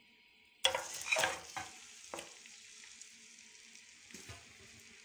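Raw mutton pieces dropped into hot oil in a wok, sizzling suddenly about half a second in, with a few knocks as the pieces land, then settling into a steady frying hiss.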